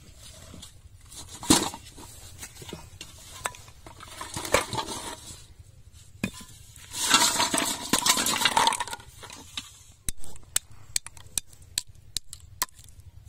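Aluminium cooking pot knocking down onto the ground, then plastic bottles rattling against its metal sides as they are tipped out. Near the end come a series of sharp separate taps as a bar strikes snails on a brick.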